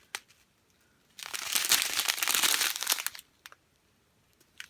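Small plastic bags of diamond-painting drills crinkling as they are handled, for about two seconds, followed by a few light clicks.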